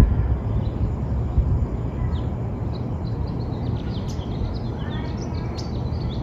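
Small birds chirping in quick, high calls, growing busier from about two seconds in, over a steady low rumble.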